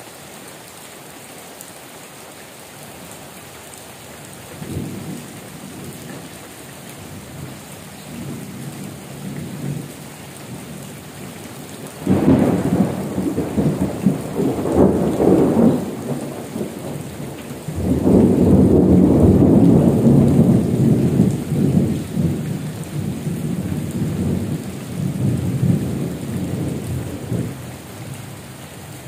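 Heavy rain falling steadily, with rolling thunder over it: faint rumbles at first, then a sudden loud rumble about twelve seconds in and a longer, louder roll from about eighteen seconds that slowly dies away.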